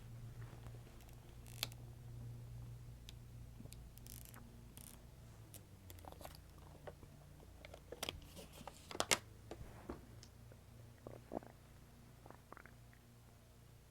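Human stomach growling: a low, drawn-out rumble that shifts in pitch partway through, with scattered sharp clicks, the loudest cluster about two-thirds of the way in.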